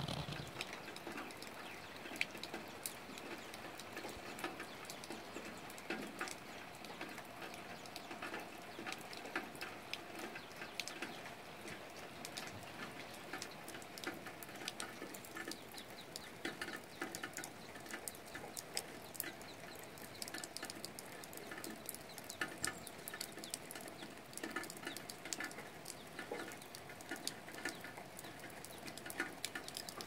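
Light rain falling on leaves: a steady hiss dotted with many separate drops pattering and clicking irregularly.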